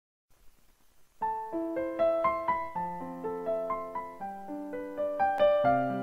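Background piano music: after a second of near silence, a slow melody of single held piano notes begins, with lower notes joining near the end.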